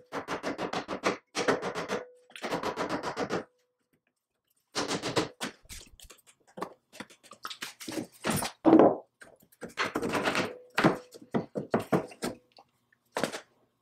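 Bursts of quick mallet blows on the cast-iron Clipper belt lacer, knocking its parts loose, with a faint ring from the metal under some of the blows. The blows pause for about a second a few seconds in, then come in more scattered groups.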